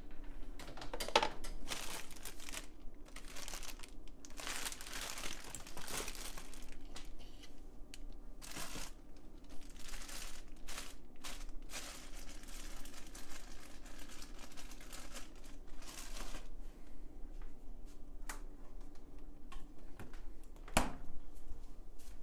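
Crinkling and rustling of food packaging handled at an open refrigerator, in irregular short bursts over a faint low steady hum, with a single sharp thump near the end.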